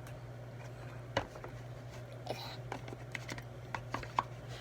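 Scattered small clicks, taps and a brief rustle from hands handling a bowl of homemade slime, over a steady low hum.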